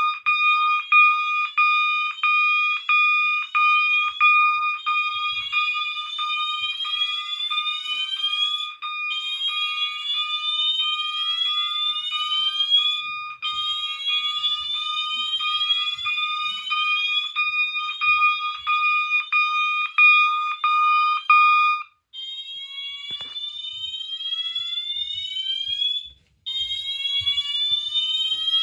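Two fire alarm horns sounding together: a Wheelock MT on its slow whoop tone, rising sweeps that repeat about every four seconds, and a second alarm on a pulsing 1200 Hz interrupted tone. The interrupted tone cuts out about three quarters of the way through, leaving the whoop alone.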